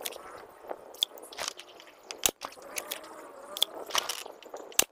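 A few sharp clicks and knocks from a Diana AR8 N-TEC break-barrel air rifle being handled: the broken-open barrel is closed and the rifle is set down on a rest bag. The loudest knock comes a little over two seconds in.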